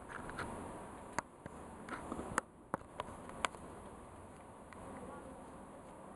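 Faint steady buzzing, with several sharp clicks in the first half.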